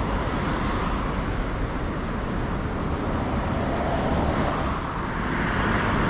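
Street traffic noise, a steady road hiss that swells as a vehicle passes in the last couple of seconds.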